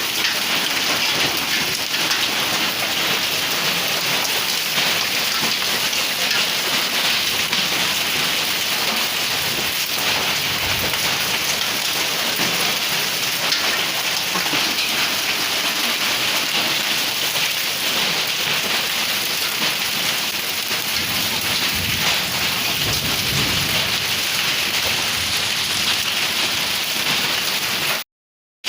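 Heavy rain and hail pelting down in a steady, dense patter on the surfaces around a house, with faint low rumbles of thunder about ten seconds in and again a little past twenty seconds. The sound cuts out abruptly for a moment near the end.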